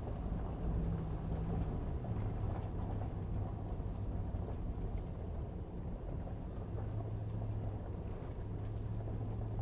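Pickup truck driving slowly up a frozen dirt road: a steady low engine hum that shifts in pitch a couple of times as the revs change.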